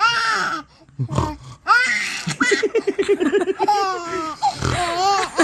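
A baby's belly laughter: high squealing cackles in repeated bursts, with a quick run of breathy ha-ha-ha pulses in the middle.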